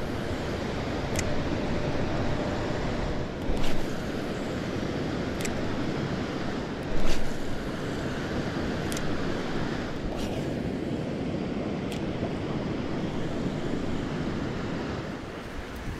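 River water rushing steadily over rocks and riffles, with wind buffeting the microphone. A few sharp clicks and two short louder bumps stand out over it.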